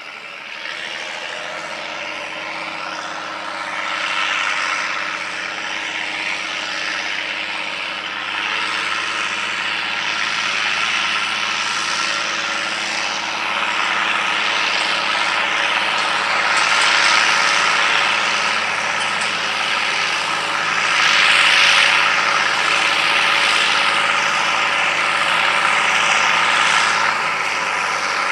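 International Harvester 3588 2+2 tractor's turbocharged six-cylinder diesel working steadily under load while pulling a planter, growing louder as the tractor comes closer.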